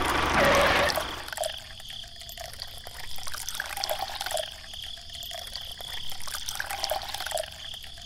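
A small motor runs and stops about a second in, followed by a faint trickle of water with small scattered clicks.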